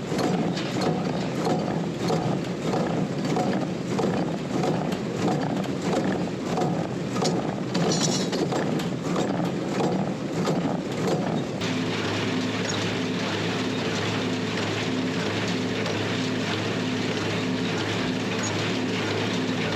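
Small square baler and tractor running, the baler's mechanism stroking in a steady rhythm a little over once a second. About twelve seconds in, the sound switches abruptly to a steadier tractor engine drone.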